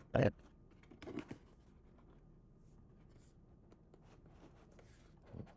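A cardboard box being opened and handled: a short loud rub near the start, a softer one about a second in, a low bump near the end, and faint rustling of packaging in between.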